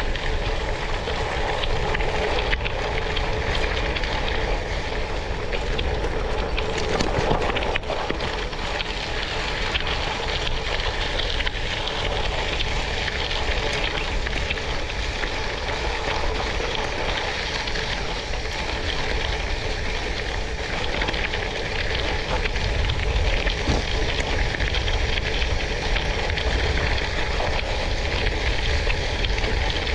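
Tyres rolling over gravel: a steady, even noise with a strong low rumble underneath.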